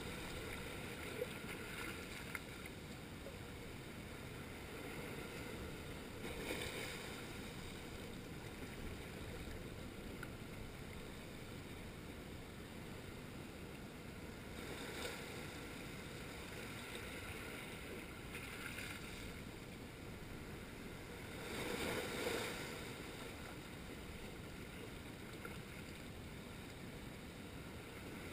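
Small waves washing in over a low rocky shoreline, a steady hiss of surf that swells four times as waves break and wash up, loudest about two-thirds of the way through.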